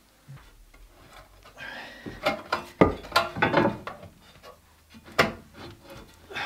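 Knocks and scrapes of a wooden block and a metal skid plate being shifted on a bottle jack under a vehicle, with a few sharp clunks, the loudest about three and five seconds in.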